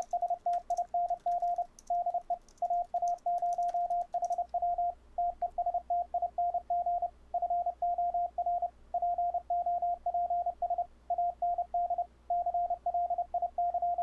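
Morse code (CW) sidetone at about 700 Hz, generated by fldigi and returned through Mumble's loopback test: a clean, steady keyed tone sending "testing de AA0HW testing for pops and clicks". The return is free of pops or clicks, a sign that the 20 ms audio-per-packet and jitter-buffer settings are working.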